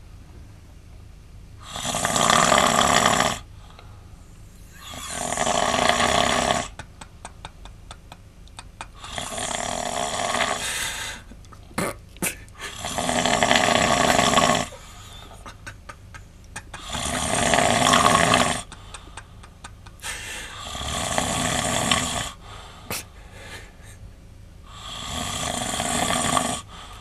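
A man snoring in his sleep: seven long snores, each about two seconds, coming every three to four seconds.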